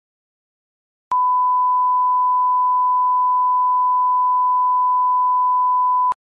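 Steady test tone of the kind that goes with SMPTE color bars: a single unbroken pure beep about five seconds long. It starts with a click about a second in and cuts off with a click just before the end.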